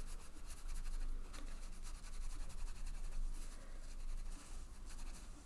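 Watercolour brush scrubbing and dabbing wet paint into a swatch on cold-pressed cotton watercolour paper: a soft, uneven scratchy rustle that swells and fades with the strokes.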